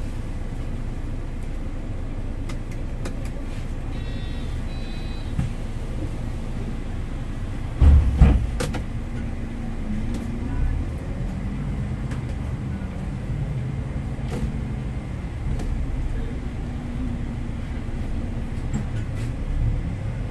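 Diesel engine of a MAN Lions City city bus running steadily, heard from the driver's cab, with a heavy thump about eight seconds in and a faint short beeping a little earlier; in the second half the bus moves off.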